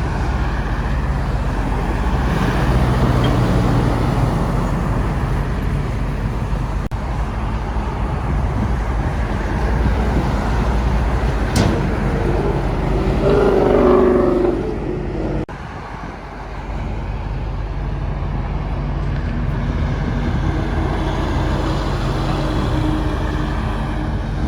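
Steady traffic noise from passing vehicles and trucks on a highway. About thirteen seconds in comes a loud blast of several tones at once, lasting roughly a second and a half.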